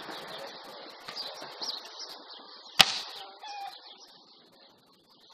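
A single sharp smack of a hand striking a volleyball, a little under three seconds in, over faint bird chirps.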